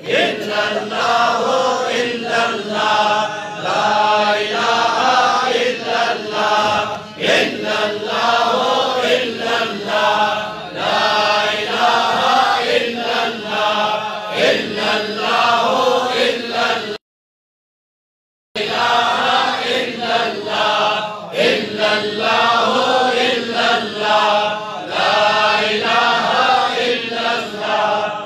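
A gathering of men chanting together in a steady, repeating rhythm, a devotional Sufi chant. The sound cuts out completely for about a second and a half roughly two-thirds of the way through, then resumes.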